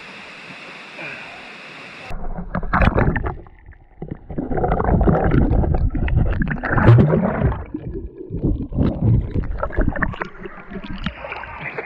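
Steady rush of a waterfall, then, about two seconds in, water close to the microphone splashing and sloshing in loud, irregular surges.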